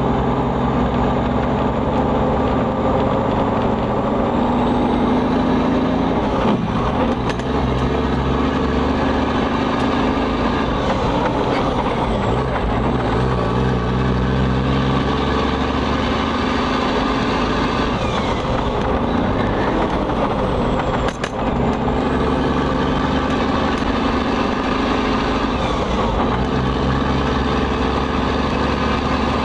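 Cummins N14 inline-six diesel in an International Eagle semi truck running on the road, heard from inside the cab. The engine note holds steady for long stretches and changes a couple of times, with a brief drop about two-thirds of the way through.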